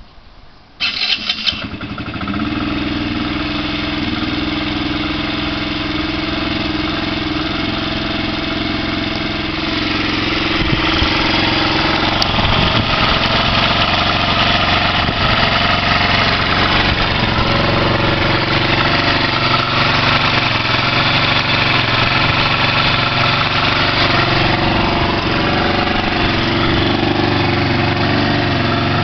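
SYM Mio 50 scooter's 49cc four-stroke engine starting at once after a brief burst of cranking, with no throttle given, then idling steadily.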